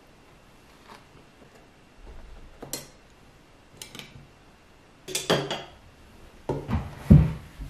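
Metal kitchen tongs clinking and scraping against a ceramic serving dish and small plate as food is served, in a few separate clinks and clatters, with a heavier low knock near the end.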